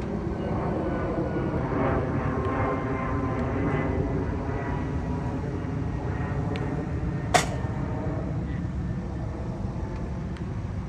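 Steady outdoor rumble with a faint droning hum, broken once about seven seconds in by a single sharp crack: a bat hitting a baseball in ground-ball practice.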